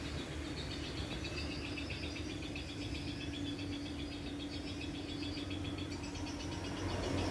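Small ornamental birds chirping and twittering in fast, dense runs of short high notes, over a steady low hum.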